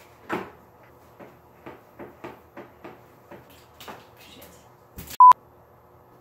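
Hands tightening a plastic hose fitting onto an inline aquarium heater, giving a run of light clicks and knocks two or three times a second, then a short rasp. About five seconds in a short, loud, steady beep sounds once.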